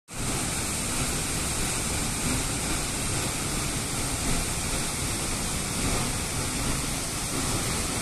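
A waterfall pouring down a narrow rock gorge: a steady, unbroken rush of falling water.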